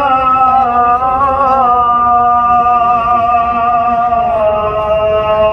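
A man's voice chanting in long held notes that waver slowly in pitch, with no pause, in the style of a call to prayer or a devotional recitation.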